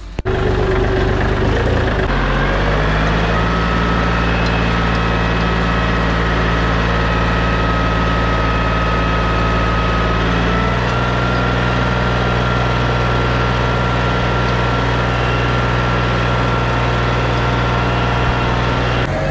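Shifeng SF-244C mini tractor's diesel engine running steadily while pulling a row cultivator through the soil. The engine note rises about two seconds in and steps up slightly in pitch about ten seconds in.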